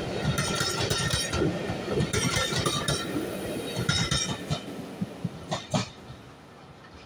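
Railway coaches rolling past, their wheels clicking over the rail joints in groups with a metallic ring, fading away as the last coach draws off. Two sharp clicks sound near the end.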